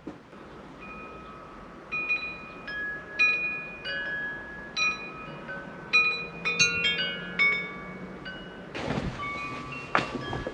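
Wind chimes ringing, with separate notes of several pitches struck at irregular moments by the wind and each ringing on. A rush of noise comes in near the end.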